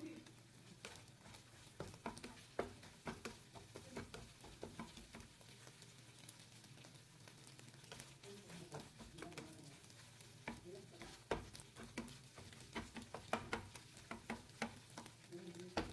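Plastic spatula stirring and scraping scrambled eggs in a nonstick frying pan, with many small irregular clicks and taps against the pan over a faint sizzle.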